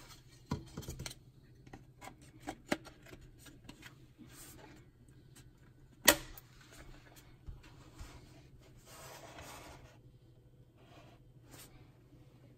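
Handling of a 3D-printed PLA clock case: scattered light clicks, knocks and rubbing of plastic parts as the back cover is fitted and pressed into place, with one sharp plastic click about six seconds in, the loudest sound.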